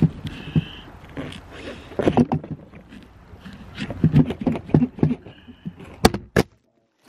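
A large knife hacking and scraping through a pumpkin's rind in an irregular run of dull chops and scrapes. About six seconds in come two sharp knocks as the camera is moved, and then the sound cuts off.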